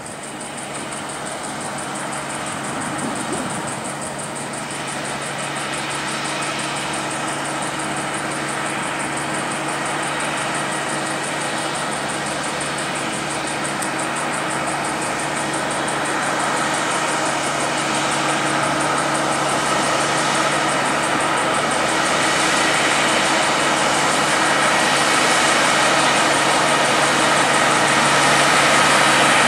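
Diesel engine of a Kenworth prime mover hauling an oversize CAT 785C mining dump truck load, running steadily and growing gradually louder as it approaches.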